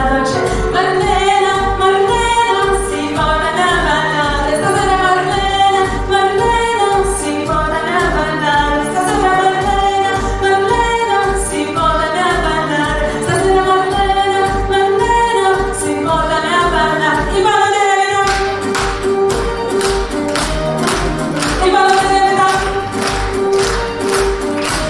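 A woman singing a pop song into a handheld microphone over amplified backing music with a steady kick-drum beat, about two beats a second. About 18 seconds in, a crisper, busier percussion pattern comes in.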